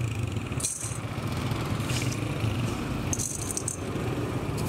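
Dry roasted corn kernels and chickpeas rattling in several short bursts as handfuls are scooped from a tub and dropped into a steel scale pan. A steady low motor hum runs underneath.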